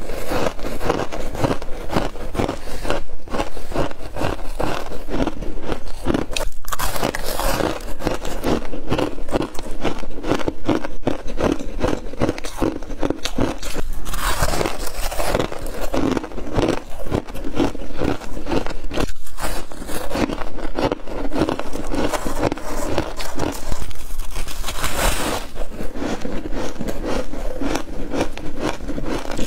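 Close-miked biting and chewing of soft freezer frost chunks: a dense, continuous run of crunches as the packed frost is crushed between the teeth.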